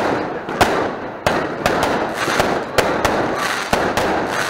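Festival fireworks going off: an irregular run of sharp cracks and bangs, about two or three a second, over a continuous crackle.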